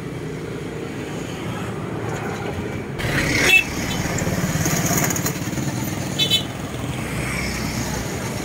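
Road traffic on a bridge: motorcycle and car engines running past with a steady low rumble. The sound changes abruptly about three seconds in, followed by a brief loud burst, and a short high beep like a horn comes about six seconds in.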